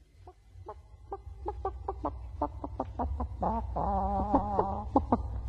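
Hen clucking in short, quick calls that grow louder, breaking into a longer wavering cackle about four seconds in. A steady low hum runs underneath.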